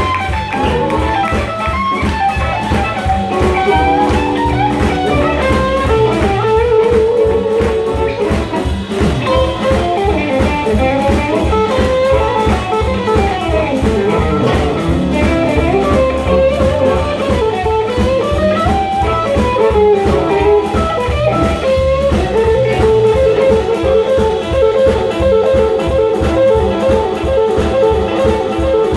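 Live blues band playing: an electric guitar lead of sliding, bent notes over a steady drum beat.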